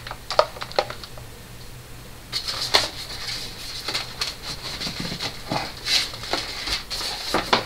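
Packaging being handled inside a cardboard box: a few sharp clicks, then from about two seconds in a long run of dense crinkling and rustling as hands rummage through the packing.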